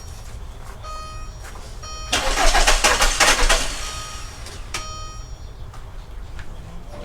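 Starter cranking the 2002 Volkswagen New Beetle's ALH TDI diesel engine for about a second and a half without it catching: it still will not start. Short beeps of the car's warning chime repeat before and after the cranking.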